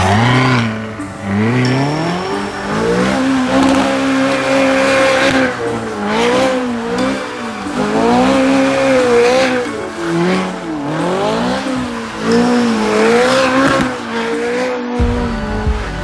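A car engine revving up and down again and again while its tyres squeal, as a car is drifted. A deep rumble comes in near the end.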